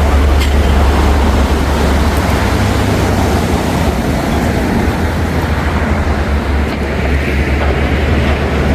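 Wind buffeting the microphone with a low, steady rumble, over the rush of sea surf.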